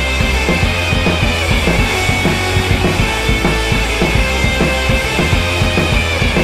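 Rock music with a steady drum beat and heavy bass.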